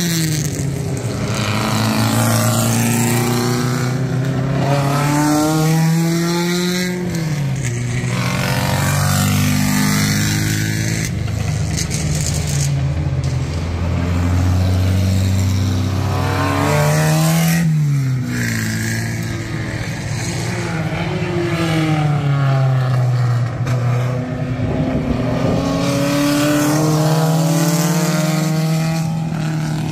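Vintage small-displacement sports-car racing engines, under two litres, accelerating hard and passing one after another, their pitch repeatedly rising and then dropping sharply.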